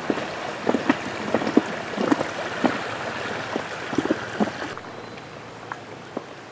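River water rushing and splashing around a canoe as it moves downstream, with many short, irregular splashes. The rushing drops off suddenly about three-quarters of the way through, leaving only a faint background.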